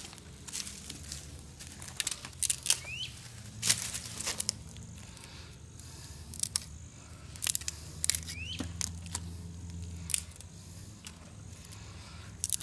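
Dry grass tinder crackling in scattered sharp clicks and snaps as it smoulders on still-hot embers, over a low steady hum.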